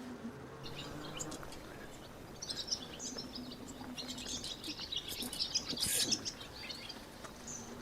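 Sandhill cranes calling, many short overlapping calls from a flock, loudest a little past the middle.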